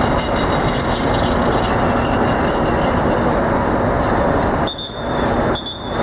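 Loud, steady city street din with a faint high whine, dropping out abruptly twice near the end.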